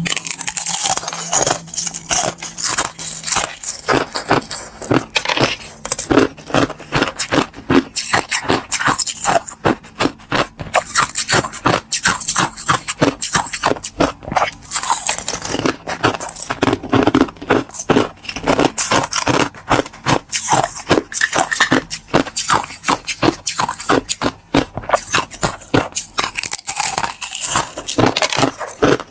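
Close-miked biting and chewing of crystal ice: a steady run of sharp, crackling crunches, several a second.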